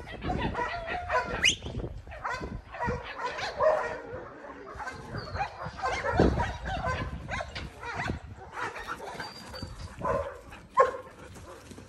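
Belgian Malinois whining and yipping over and over, with a sharp bark near the end.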